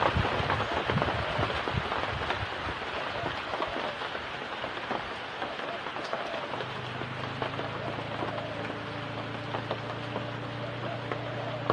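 Heavy rain falling steadily, with drops hitting close by; it eases a little over the first few seconds. From about halfway a steady low hum joins in.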